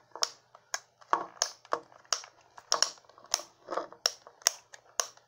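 Plastic Buzz Lightyear action figure being flexed and posed by hand: a quick, irregular run of sharp clicks and creaks from its joints and plastic body.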